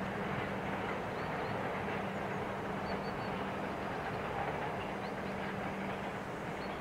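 Freight train of empty open wagons and tank cars rolling away over the rails: a steady rolling noise with a low hum.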